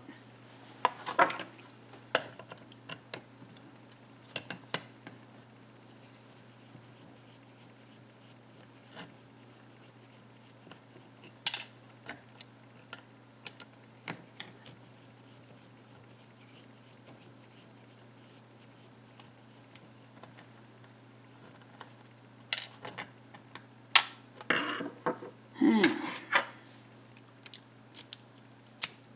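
Scattered small metallic clicks and clinks of a pin-tumbler lock and its tools being handled as the lock is taken apart, with a cluster of louder clacks near the end, over a faint steady hum.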